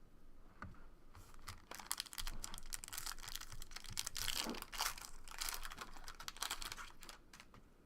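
Plastic packaging and trading cards being handled, giving an irregular crinkling and rustling with small clicks.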